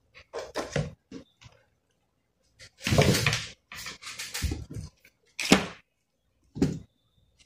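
Laptop parts and an SSD in its plastic retail pack being handled and set down on a desk: a string of short knocks, clacks and scrapes, the loudest about three seconds in and again about five and a half seconds in.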